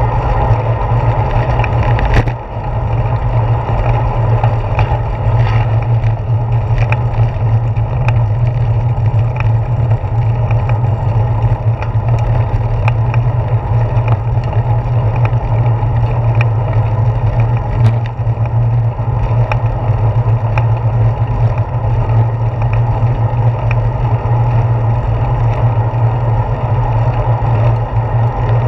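Steady low rumble of a bicycle rolling along a paved path, wind and tyre vibration picked up by a GoPro Hero 4 mounted on the handlebars, with scattered small clicks and rattles. A sharp knock about two seconds in.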